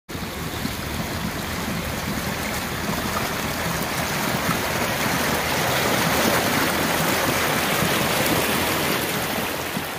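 Churning prop wash and wake behind a boat driven by an ePropulsion Spirit 1.0 Plus electric outboard: a steady rush of splashing water that grows somewhat louder over the first few seconds.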